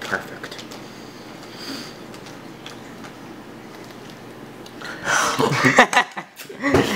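Quiet room noise, then a person's voice about five seconds in.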